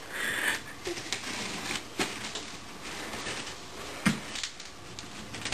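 Scissors cutting and scraping through packing tape on a cardboard shipping box, making a run of irregular clicks and scratches.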